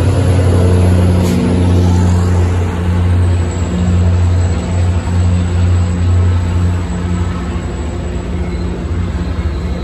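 MBTA commuter rail diesel locomotive running under power as it pulls its train out, a steady low engine drone that falls off about seven seconds in as the passenger coaches roll by.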